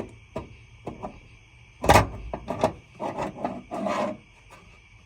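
Parts being handled during a bolt test fit: a run of light knocks, one louder thump about two seconds in, then a few short scraping rubs before it goes quiet.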